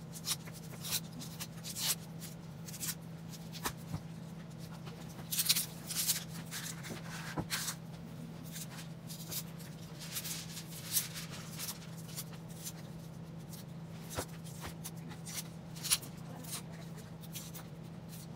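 A knife scraping and catching on a hard yellow onion as it is peeled, with the dry papery skin crackling and rustling as it comes away, in irregular short scratches. A steady low hum runs underneath.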